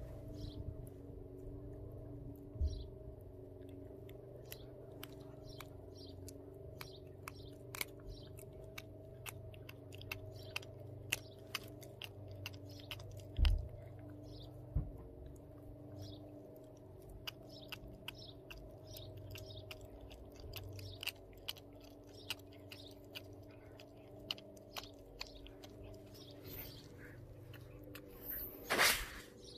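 Pomeranian chewing a raw duck foot held in a hand: irregular crunching and clicking of teeth on bone and cartilage. There is a low thump a little before halfway and a brief noisy rush near the end.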